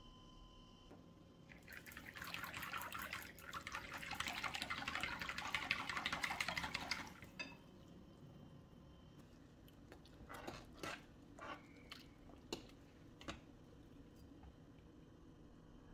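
A coil whisk beats a thin liquid mixture in a glass bowl, a fast, splashy, rapid sound lasting about five seconds. Later come a few separate sharp clinks of utensils.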